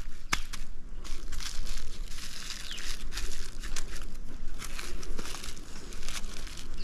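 Blue plastic bag crinkling and rustling as hands press and wrap it around the soil ball of a mango air layer, with two sharp clicks right at the start.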